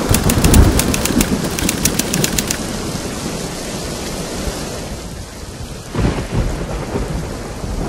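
Heavy rain with rolling thunder, crackling for the first couple of seconds, with a low rumble swelling up about six seconds in and again near the end.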